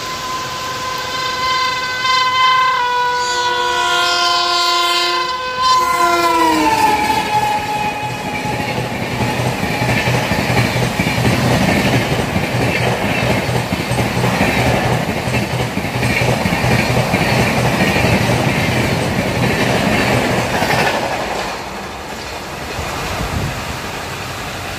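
WAP-7 electric locomotive blowing its multi-tone horn as it approaches at speed; the horn's pitch slides down as the locomotive passes about six seconds in. The coaches then rush past with a rhythmic clickety-clack of wheels over rail joints. This fades about 21 seconds in to the steady hiss of heavy rain.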